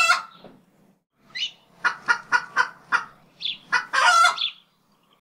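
Chicken clucking: a run of short clucks, ending about four seconds in with a longer, louder squawk.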